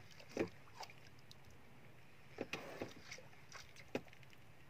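Irregular light knocks and slaps around the hull of a small wooden boat, about eight short hits spread unevenly, over a faint steady background.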